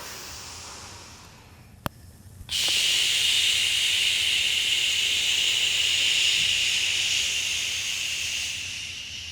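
A steady hiss that starts abruptly about two and a half seconds in and slowly fades, preceded by a single sharp click.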